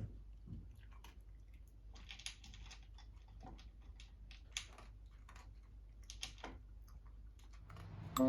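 A dog crunching dry food, irregular crisp crunches and clicks over a low steady hum.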